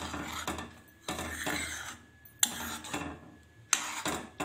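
Metal spoon stirring a thick oats-and-vegetable mixture in a metal kadai, scraping the pan, with a few sharp clinks of the spoon against its side.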